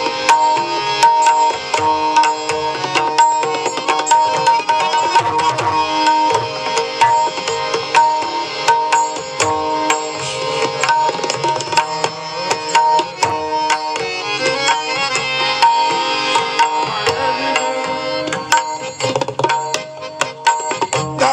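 Marathi bhajan music: Indian hand drums playing a fast, steady rhythm of sharp strokes over long held notes.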